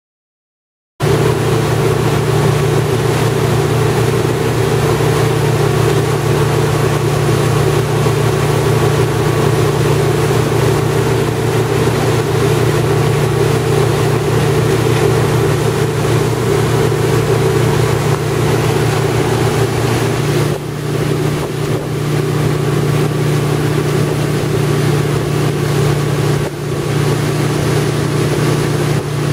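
Tow boat's engine running steadily at speed, heard from on board, with the rush of its wake underneath; it cuts in about a second in.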